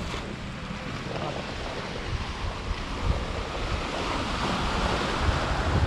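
Wind buffeting the microphone over the steady wash of waves, with a surge of hiss building about three and a half seconds in and easing near the end.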